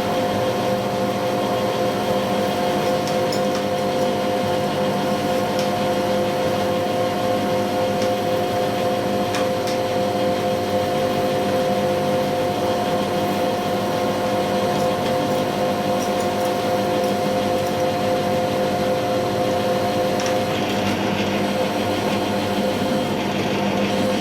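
Metal lathe running steadily, its motor and gear train giving a constant whine with several steady tones, while it takes a cut along a shaft.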